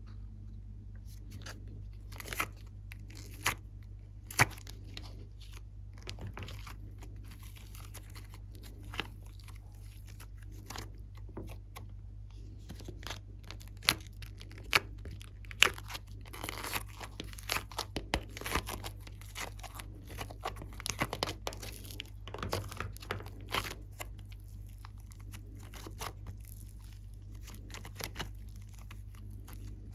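Glossy slime being worked by hand, giving sticky pops and crackles that come scattered at first and fastest in the middle. A steady low hum runs underneath.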